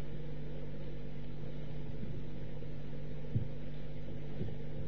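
Steady low hum of the recording's background, with a faint soft tick about three and a half seconds in.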